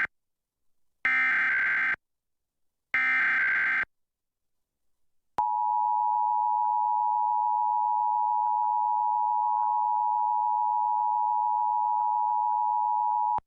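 Emergency Alert System activation: the tail of one SAME digital header burst, then two more one-second data bursts, followed about a second and a half later by the steady two-tone EAS attention signal, held about eight seconds before it cuts off sharply. These are the opening tones of a statewide Required Monthly Test.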